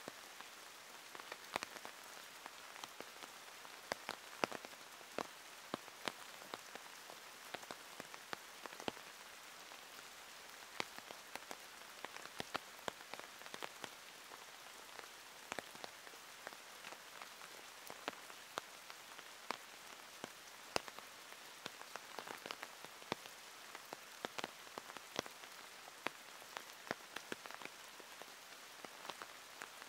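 Steady rain hissing, with single drops landing as sharp, irregular ticks, several a second.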